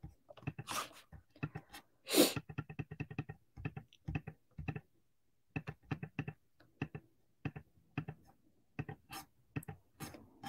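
Computer mouse and keyboard clicks, short and irregular, with a quick run of clicks about two and a half seconds in. A louder short noise comes about two seconds in.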